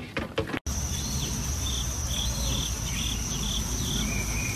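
A few sharp taps of goat hooves on a wooden post. Then a steady high insect trill sets in, with a run of short chirps and a low rumble underneath.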